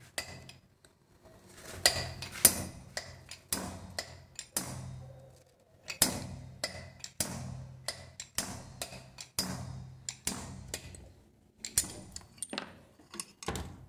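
Hammer blows on a steel drift driving valve guides out of a Volkswagen AP aluminium cylinder head: dozens of sharp metallic strikes at an uneven pace, each with a short ring. The head is still hot from welding and has expanded, so the guides drive out easily.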